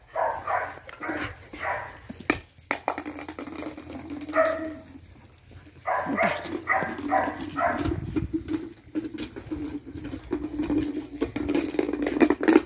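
Puppies barking in quick runs of short, high yips, several in a row, with a lower steady growl under much of the second half while they play and wrestle.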